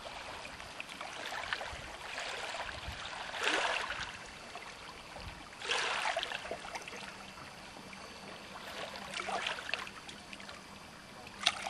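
Water rushing and splashing against a moving boat's hull, rising in louder surges every two to three seconds as it meets waves. A faint steady hum joins about halfway through.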